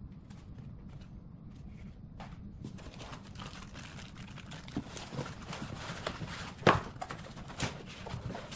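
Handling noise from unpacking a 3D printer: plastic bag and foam packing rustling and scraping, with several sharp knocks as the printer base is lifted out of its cardboard box, the loudest two in the second half.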